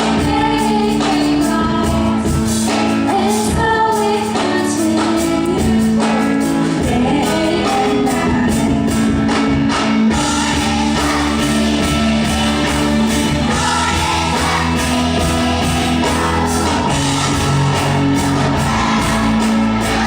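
Singing with instrumental accompaniment, a song carried on steady held bass notes.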